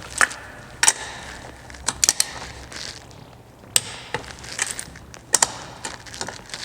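Torque wrench being worked on golf cart lug nuts: sharp metallic clicks at irregular intervals, several in quick succession around two seconds in and again around five seconds in.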